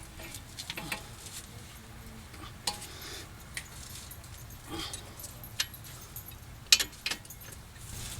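Hand tools clinking and clicking on metal at irregular intervals while the lower strut-to-knuckle bolts and nuts are tightened, with the sharpest clicks about seven seconds in.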